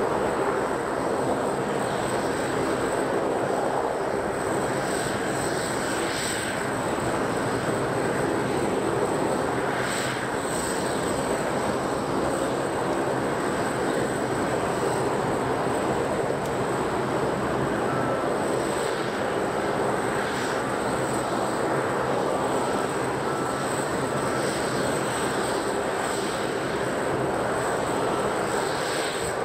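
Steady airport apron noise around a parked Boeing 747-8F freighter during cargo handling: a constant broad drone with a thin high whine over it and a few brief swells of hiss.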